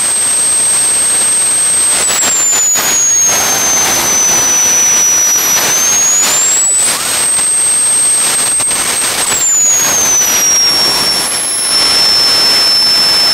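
A 200-pound-thrust jet engine running steadily and loudly, with a high whine over its rushing noise. The whine falls about two seconds in, climbs again around six seconds, holds, then drops away from about nine to eleven seconds as the engine speed is brought down.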